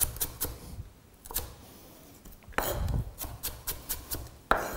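Chef's knife chopping carrot into thin strips on a wooden chopping board: quick knife strokes against the board, a lull of about two seconds, then a fast run of chopping again.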